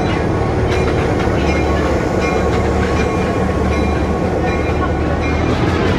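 EMD GP11 diesel switcher-road locomotive rolling slowly past close by, its diesel engine running with a steady low hum, and wheels clicking now and then over rail joints.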